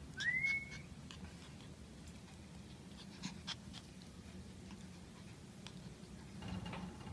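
Poodle puppy giving a short, high whine that rises in pitch, just after the start, followed by a few light clicks.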